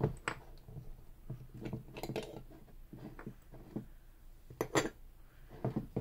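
Metal parts of a 7-lever safe lock clicking and clinking as it is opened up by hand, with sharp clicks scattered through, the loudest near the start and about three-quarters of the way in.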